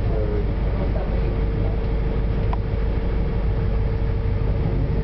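Bus engine and running gear rumbling, heard from inside the passenger cabin while the bus is under way, with a steady hum. A short tick about two and a half seconds in.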